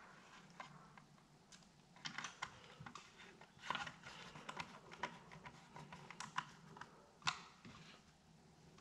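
Irregular small clicks and ticks of a hand screwdriver turning T10 Torx screws into a CPAP machine's plastic housing, with one sharper click about seven seconds in.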